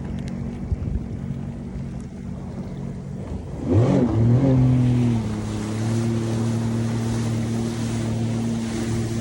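Jet ski engine running steadily, then revving up sharply about three and a half seconds in and holding a higher, steady pitch as the watercraft accelerates in sport mode. Wind and water noise throughout.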